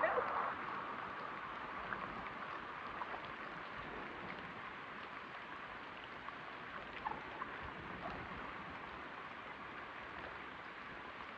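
Steady hiss of water, with a few faint scattered drips or ticks.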